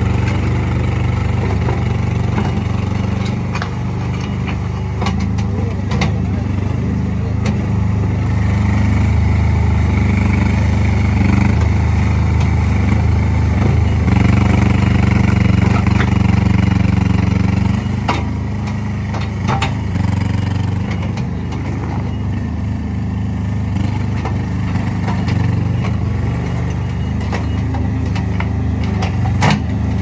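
Compact skid steer loader's engine running steadily, a little louder for several seconds in the middle before settling back, with a few sharp clacks and knocks scattered through it.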